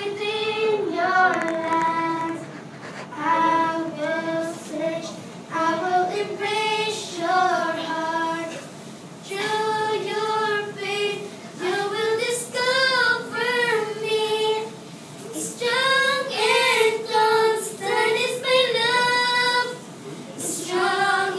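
A girl singing a slow song unaccompanied, in sung phrases of held notes with short breaths between them.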